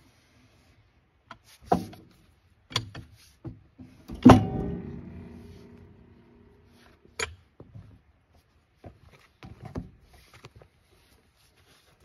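A heavy alder log is rolled with a cant hook on a Wood-Mizer LT15 sawmill's steel bed, giving a series of wooden knocks and clunks. About four seconds in, the log drops flat onto the bed with one loud thud, and the steel rings on, dying away over about two seconds.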